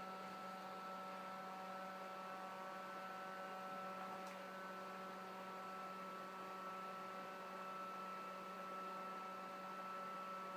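Steady electric fan motor hum with several steady tones over it; one of the higher tones drops out about six seconds in.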